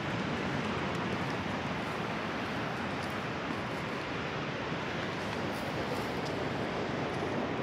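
Ocean surf and wind on the microphone, an even, steady rush of noise.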